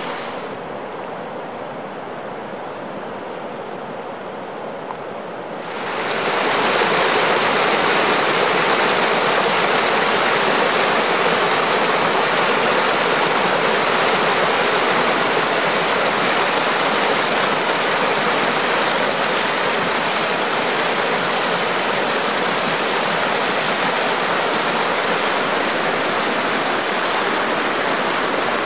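Steaming hot spring water rushing and splashing down over rocks in a steady cascade. About six seconds in, the sound grows louder and brighter and stays so.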